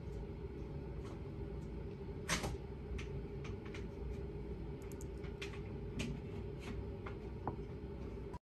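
Plastic Play-Doh ice cream maker creaking and clicking as its extruder is pressed down and dough is squeezed out. There are scattered light clicks, with one sharper click about two seconds in, over a steady low hum. The sound cuts off just before the end.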